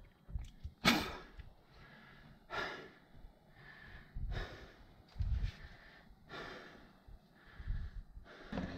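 A climber breathing hard, with a noisy breath in or out about every second; the sharpest breath comes about a second in.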